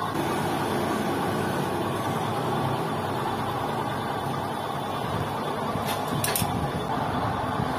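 Lathe machinery running with a steady mechanical hum, the drum not being cut, and two short sharp clicks about six seconds in.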